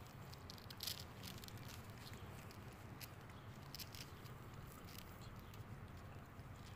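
Mother cat licking a newborn kitten: faint, irregular small wet clicks of her tongue on its fur.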